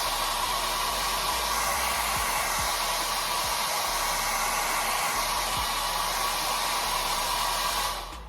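Hand-held hair dryer blowing steadily, a rush of air with a steady whine in it, switched off near the end.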